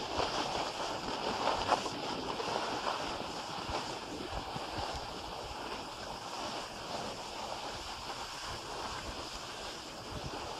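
Skis sliding over packed snow while being towed up a surface-lift track, a steady scraping hiss, with wind rumbling on the microphone.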